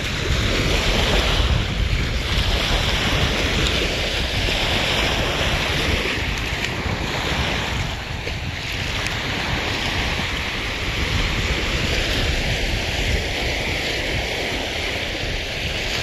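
Small waves breaking and washing up onto a sandy shore, a steady rushing wash, with wind buffeting the phone's microphone.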